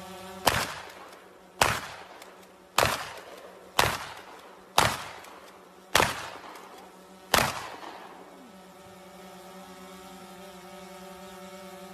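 Seven gunshots from a long gun, about one a second, each with a short echoing tail, fired at an armored SUV's body. A faint steady hum of tones lies underneath, and the shooting stops after about seven seconds.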